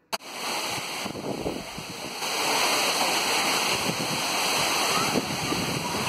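Steady rush of a tall waterfall pouring down a rock face, swelling louder about two seconds in.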